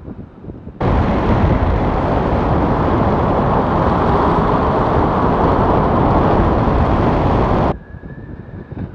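Loud wind rushing over the camera microphone in paraglider flight, cutting in abruptly about a second in and cutting out just as abruptly near the end, with quieter wind buffeting either side.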